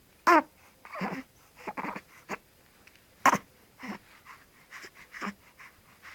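Hiccups from Harry: short, sharp squeaky hiccups, the two loudest about three seconds apart, with quieter short breathy sounds between them.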